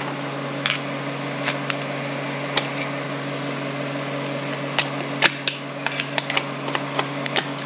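Scattered sharp clicks and clacks from the shift lever and detents of a freshly rebuilt Borg-Warner T5 five-speed manual transmission as it is shifted from fourth toward fifth gear, more of them in the second half. A steady hum runs underneath.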